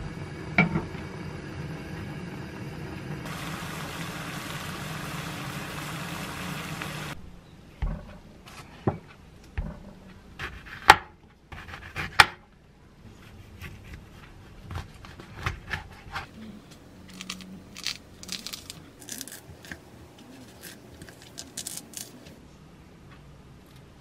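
A glass jar knocks once against a pot as it is lowered in to be sterilised, then a steady hiss rises over the pot on the gas stove. After that, a kitchen knife cuts through grapefruit peel onto a wooden chopping board with a few sharp knocks, followed by soft, wet crackling as the membranes are peeled off the grapefruit segments.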